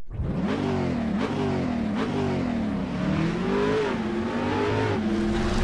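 Car engine accelerating hard through the gears, its pitch climbing and dropping back about four times as it shifts up.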